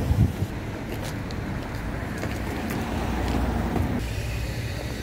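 Low steady rumble of street traffic, swelling slightly past the middle, with one brief thump just after the start.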